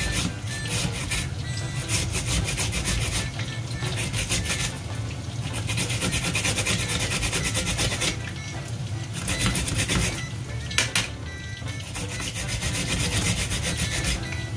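Daikon radish being grated on a small plastic grater: rapid back-and-forth scraping strokes, with a few brief pauses between runs.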